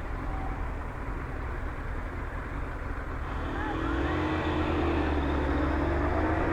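Yamaha FZS600 Fazer's four-cylinder engine idling at a standstill, with a low steady hum. From about halfway through, another vehicle's engine comes in and grows louder.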